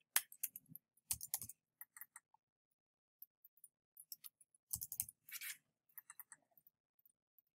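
Faint, irregular keystrokes and clicks of a computer keyboard being typed on, with a few louder clicks about a second in and around five seconds in.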